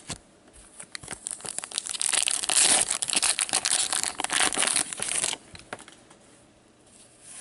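The wrapper of a 2015-16 Upper Deck Champs hockey card pack being torn open and crinkled by hand: a dense crackling that builds about a second in, runs for about four seconds and stops suddenly.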